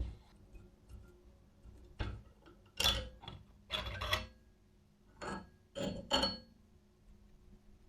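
Small metal parts of an antique coffee grinder clinking and knocking as they are handled, in about six short, irregular clatters, some with a brief metallic ring.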